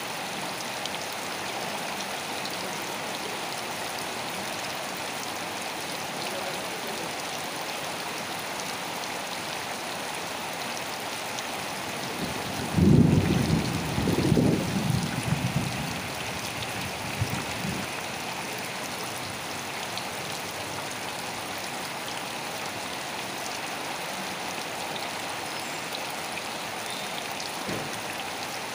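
Steady rain falling. About halfway through, a low rumble swells up, loud for a few seconds, then dies away.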